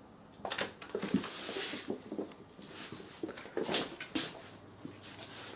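Two cats play-fighting on a wooden floor: paws scrabbling and bodies bumping in a run of short, irregular scuffles.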